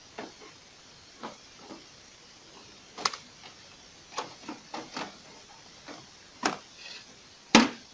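Plastic clicks and knocks as a refilled cartridge is pushed into an HP printer and its cover is handled: a dozen or so separate short knocks, the loudest near the end.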